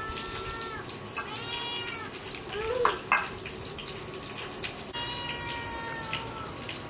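A young animal crying with long, high, drawn-out calls: one rises and falls about a second in, and another is held level about five seconds in, over a steady hiss.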